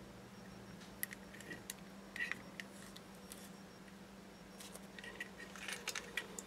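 Faint handling noises: a few light clicks and rustles as a plastic model aircraft and stencil sheets are moved about on a tabletop, coming more often near the end, over a low steady hum.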